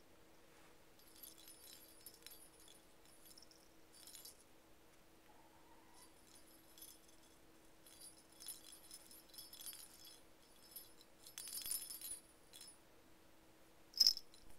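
Faint, intermittent light jingling and clicking, in scattered bursts, over a steady faint hum, with one sharp click near the end.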